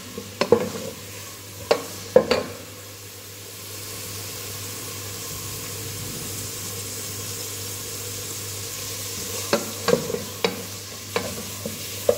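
Chopped onions sizzling as they fry in hot oil in a pot. A spoon stirs them and knocks against the pot a few times near the start and again near the end.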